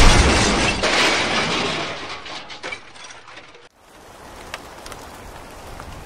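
A load tipped from a toy tractor's trolley, a loud crash and rattle that fades over two to three seconds. After an abrupt cut a little over halfway, steady light rain.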